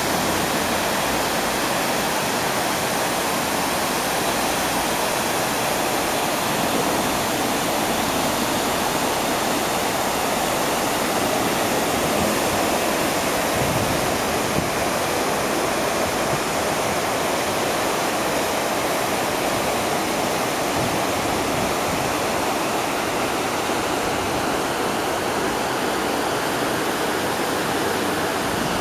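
Water pouring down the walls of the 9/11 Memorial's reflecting pool into the basin: a steady, unbroken rush of falling water.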